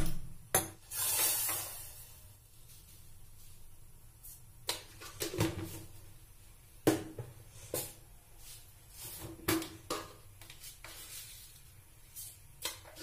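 Kitchen utensil clatter at a gas stove: a steel saucepan, containers and a spoon knocking and clinking in a scattered series of sharp knocks about a second or two apart, with a brief rush of noise about a second in, as tea is being put on to cook.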